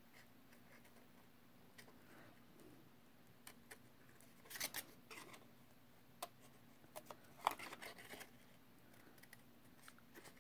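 Scissors snipping through embossed cardstock: faint, irregular snips, some in quick pairs, scattered through the middle stretch.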